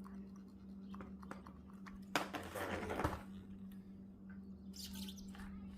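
Hands handling a gas string trimmer: scattered light clicks, and about two seconds in a rough scraping rustle lasting about a second, over a steady low hum.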